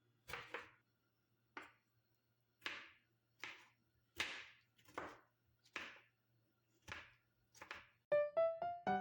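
Knife chopping food on a cutting board: a steady series of about ten separate strokes, roughly one every three-quarters of a second. Piano background music comes in near the end.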